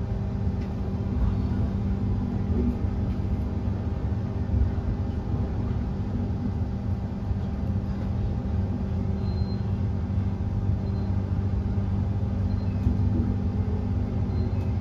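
Interior running noise of a Queensland Rail NGR 700 series (Bombardier) electric multiple unit carriage in motion: a steady low rumble with a constant hum of several steady tones.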